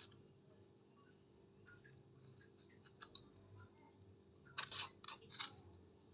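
Soft scrapes and clicks of a utensil mashing avocado flesh, with a short cluster of louder clicks a little past halfway.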